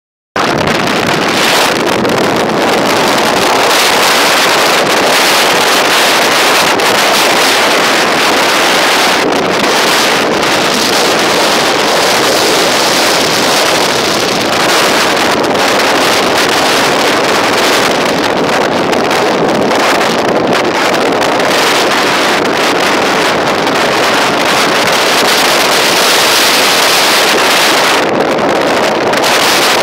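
Loud, steady rushing of wind and surf on an open beach.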